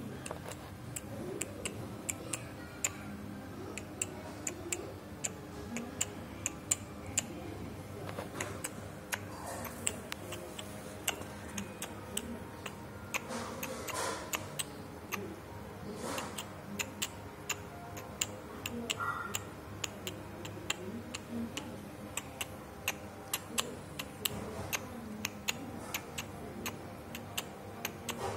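Light ticking that keeps going, a few ticks a second, slightly uneven, over faint background voices and music.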